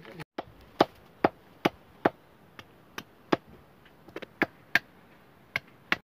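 A series of sharp, separate clicks or cracks, about a dozen, coming unevenly about two a second.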